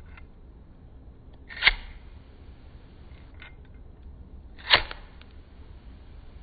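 Pocket lighter struck twice, about three seconds apart, each strike a sharp click with a short rasping tail. The first strike fails; the second lights the flame.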